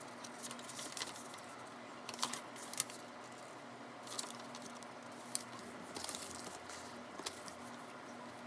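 Objects being handled at close range: scattered light clicks and taps with paper or plastic rustling and crinkling, over a faint steady hum.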